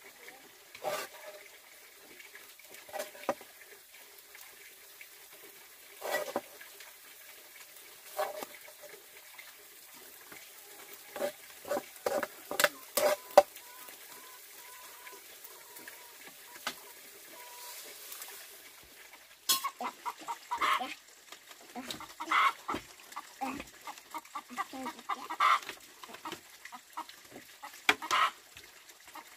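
Chickens clucking, with metal clinks and scrapes from a ladle stirring in a wok. The sharpest knocks come in a cluster about twelve to thirteen seconds in, and the clucking and knocking grow busier in the second half.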